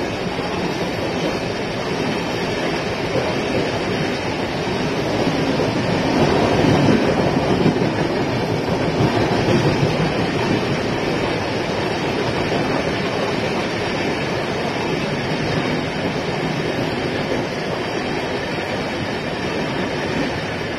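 Express train of LHB coaches running through a station at speed: a steady rumble of wheels on the rails, a little louder about six to ten seconds in.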